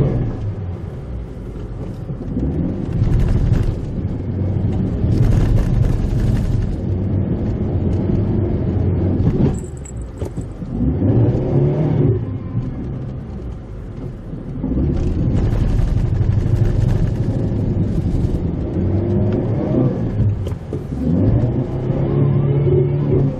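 Mitsubishi Pajero Mini engine pulling the small 4x4 along a rough forest road, its revs rising and falling again and again with the throttle and gear changes, over steady road noise.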